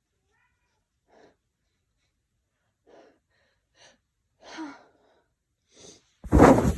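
A man's short, catching breaths as a sneeze builds, then one loud, strong sneeze near the end, brought on by chhinkni sneezing powder.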